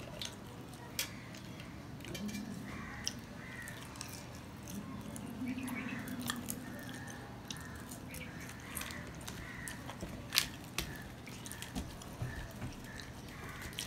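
Close-up eating sounds of a man eating luchi, deep-fried puffed flatbread, by hand: chewing and lip smacks, with scattered sharp clicks of fingers and bread on a steel plate, the loudest about ten seconds in.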